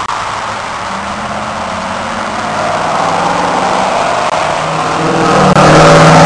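A car engine running at a steady, low idle-like pitch. About five and a half seconds in, the sound cuts abruptly to a much louder running engine.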